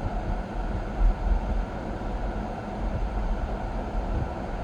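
Inside a moving car: steady low road rumble mixed with the air conditioning fan running, with a brief thump about a second in.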